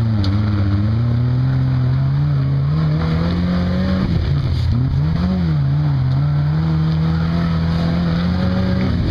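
Lifted pickup truck's engine working hard under load as it climbs a muddy slope on large mud tires, the pitch rising with the throttle, dipping sharply about four seconds in, then rising again and holding.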